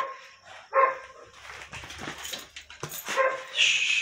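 A dog barking three times, short sharp barks at the start, just under a second in and about three seconds in, while it plays tug with a cloth rag, with scuffling and rag noise between the barks.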